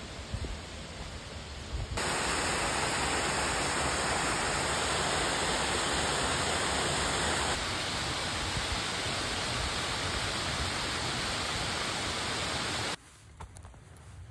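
Steady, even rushing noise that jumps louder about two seconds in, eases slightly midway and cuts off abruptly shortly before the end. Faint footsteps on the trail follow.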